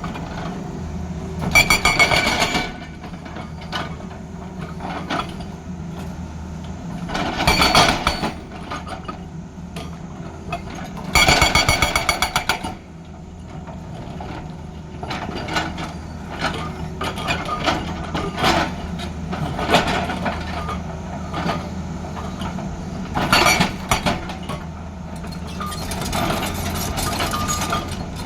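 Tata Hitachi excavator's diesel engine running steadily while its hydraulic breaker hammers in several short bursts of rapid blows, the longest lasting about a second and a half.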